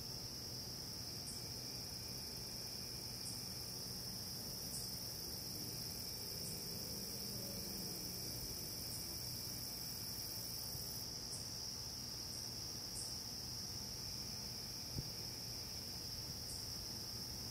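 Night insects trilling: one steady, unbroken high-pitched trill, with faint short high ticks every second or two.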